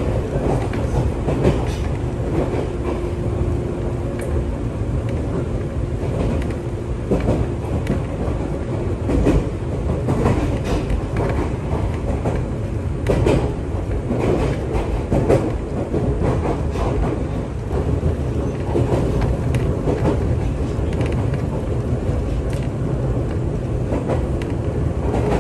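Ryutetsu Nagareyama Line commuter train running, heard from inside the carriage: a steady low rumble with irregular clicks and knocks from the wheels on the track.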